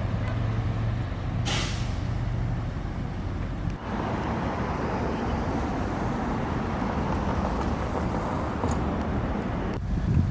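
A vehicle engine humming low and steady, with a short, sharp hiss about a second and a half in. After a sudden change a few seconds in, an even rushing noise like passing traffic.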